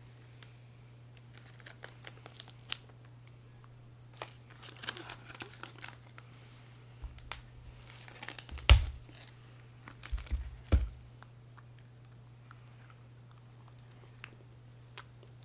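Crinkling and tearing of a chocolate bar's wrapper as it is opened and handled, in scattered crackly bursts with a few sharp knocks, the loudest about nine seconds in.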